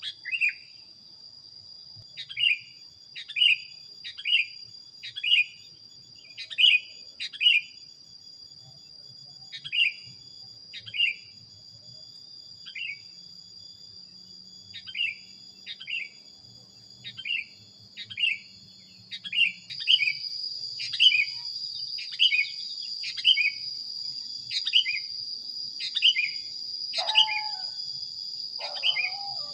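Sooty-headed bulbul (kutilang) giving a long run of short, clear, downward-sweeping chirps, roughly one a second with small gaps. A steady high-pitched ringing drone runs underneath and gets louder about two-thirds of the way through, and a couple of lower calls come near the end.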